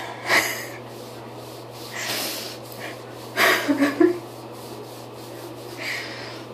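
Breathy, noisy sounds close to the microphone, breathing and rubbing, in short bursts, the loudest a cluster about three and a half seconds in, over a steady low hum.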